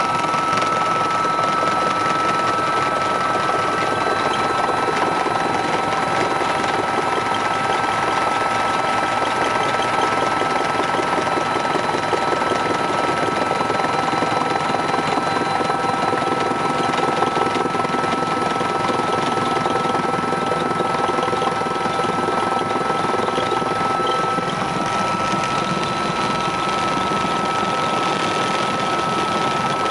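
Helicopter noise heard inside the cabin: the engines and rotor running steadily, a constant rush with several fixed whining tones over it, no change in pitch or level.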